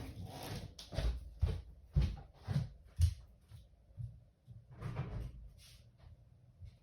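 A series of dull household thumps and knocks, about six in the first four seconds, then a longer rustle about five seconds in: someone getting up and moving off through the house to answer the front door, with door-like knocks.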